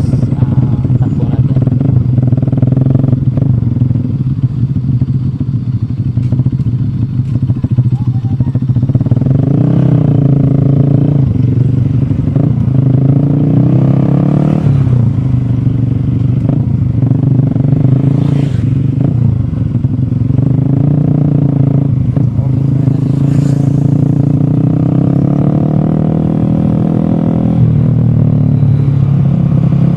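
Motorcycle engine running while on the move, its pitch rising and falling again and again.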